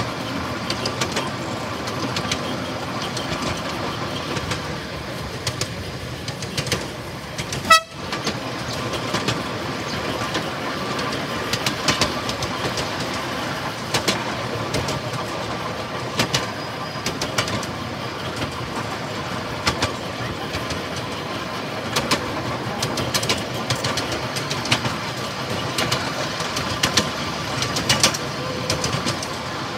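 Miniature railway train running along its track: a steady rumble of the wheels on the rails, with sharp clicks every couple of seconds. A short, high toot of the train's horn sounds about eight seconds in.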